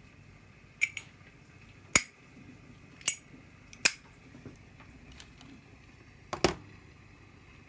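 Zorro flip-top lighter (Zippo-style) being handled, its metal lid flicked open and snapped shut: a series of sharp metallic clicks, some in quick pairs, the loudest about two seconds in and another pair near the end.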